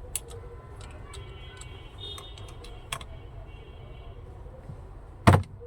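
A scattered series of light clicks and taps, like small metal tool parts being handled, then one loud short knock about five seconds in.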